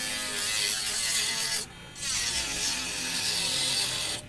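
Cordless mini grinder on its third speed, its small cutting disc whining and rasping as it cuts into thick PVC pipe. The cutting sound drops out briefly about a second and a half in, then carries on.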